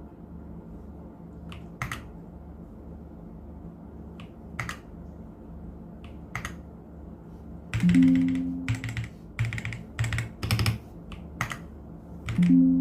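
Ajazz AK820 mechanical keyboard keys being pressed: a few single keystrokes a couple of seconds apart, then a quicker run of typing from about two-thirds of the way in. Soft background music runs underneath.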